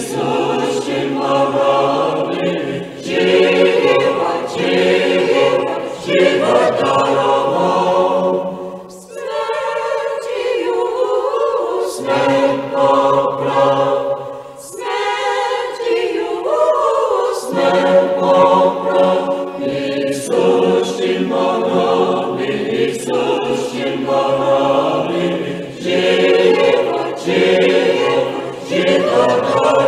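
A choir sings a Paschal hymn unaccompanied, in the Slavonic church singing tradition. Twice the low voices fall silent and the upper voices carry the melody alone before the full choir comes back in.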